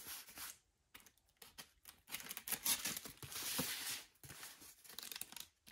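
A knife slitting the packing tape on a sealed cardboard case, with tape and cardboard scraping and rustling in a few short spells, the longest from about two to four seconds in.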